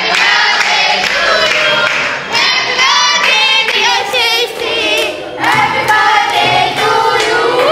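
A group of voices singing together, with hands clapping along.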